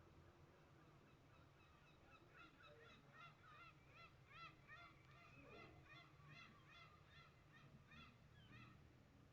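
A flock of birds calling faintly, many short honking calls overlapping several times a second from about two seconds in until near the end.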